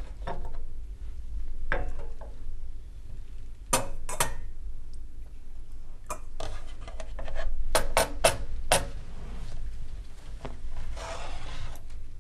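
Crockery and cutlery clinking and knocking, a string of sharp clinks bunched closest together about eight seconds in, with a brief rustling near the end.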